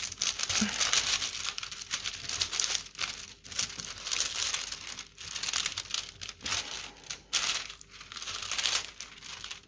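Clear plastic protective film on a diamond painting canvas crinkling and rustling as a hand presses and smooths it flat, in a run of strokes broken by brief pauses.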